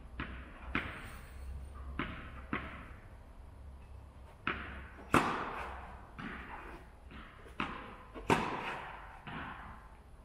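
Tennis balls being bounced and struck with a racket in forehand drills: a string of sharp knocks at uneven spacing, each trailing a long hall echo, with the two loudest hits about five and eight seconds in.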